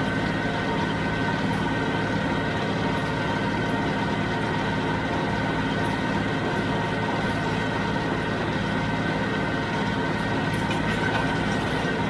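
John Deere 5055D tractor's three-cylinder diesel engine running steadily at a constant speed.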